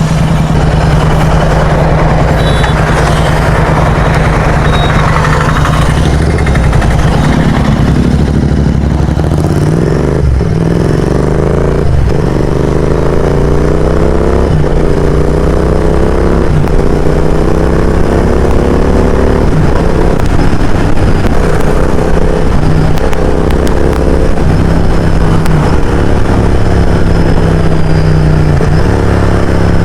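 Royal Enfield Continental GT 650's parallel-twin engine, loud through a Mototorque aftermarket exhaust, running at a steady idle, then from about seven seconds in its pitch climbs again and again as it is revved up over and over.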